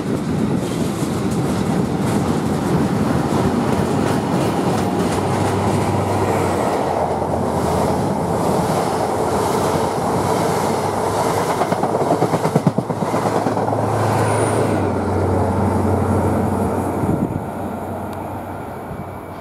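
A long loaded freight train of covered steel-coil wagons rolling past close by, wheels clattering over the rail joints. Partway through, a passenger train passes on the adjacent line, and near the end the sound fades as the wagons draw away.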